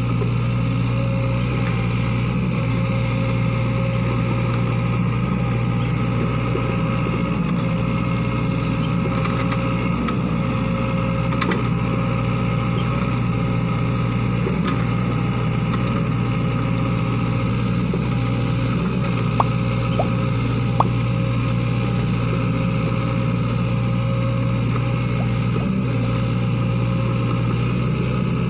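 Sany SY55C mini excavator's diesel engine running steadily under work, with three short sharp clicks about two-thirds of the way through.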